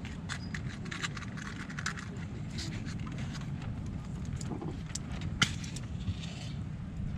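Small clicks and rattles of camping gear being handled, with one sharper click about five and a half seconds in, over a steady low rumble of wind.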